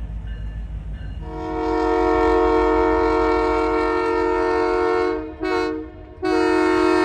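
Diesel locomotive air horn blowing for a road crossing: a long blast, a short one, then another long blast starting near the end, over a steady low rumble. For about the first second only the low rumble is heard.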